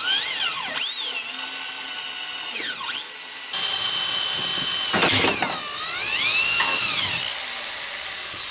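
Handheld electric drill drilling out VW Beetle door-hinge rivets. Its motor whine repeatedly drops and climbs back as the bit bites and the trigger is eased, and winds down near the end.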